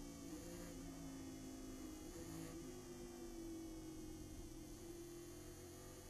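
Race car engine heard from the onboard camera inside the cockpit, a steady drone whose pitch dips slightly about a second in as the car brakes from high speed for a corner.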